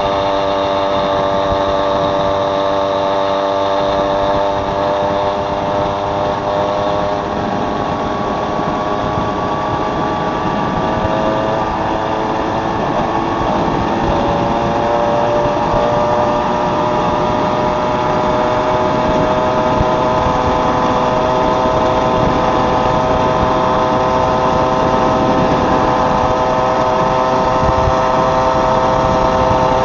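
Moped engine running steadily under way, its pitch shifting upward about halfway through and then holding steady.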